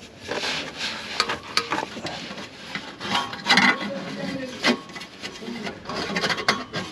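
Hands rubbing and scraping along the heat-wrapped exhaust pipe of a diesel heater, with a few sharp clicks and knocks as it is handled, the loudest a little past the middle.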